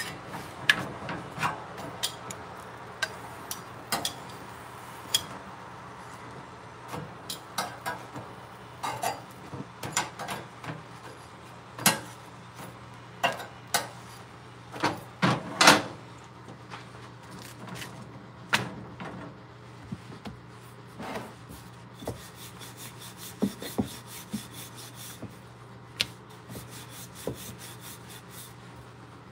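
Chapati-making kitchen sounds: metal tongs clinking against an iron tawa as a roti is turned and moved, and a wooden rolling pin knocking and rolling on a stone board, over a faint steady low hum. From about two-thirds of the way through, a run of quick, light, evenly spaced clicks comes as the dough is rolled out.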